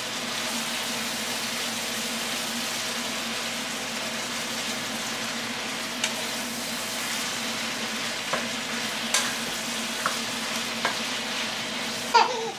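Beef and onions, the beef still partly frozen, sizzling as they fry in a nonstick pan, stirred with a wooden spatula that scrapes and taps the pan now and then. A steady low hum runs underneath.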